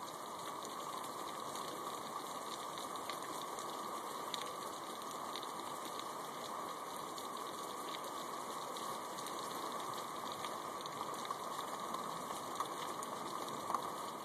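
Steady rain falling outside an open window, an even hiss with scattered faint drop ticks and one sharper tick near the end.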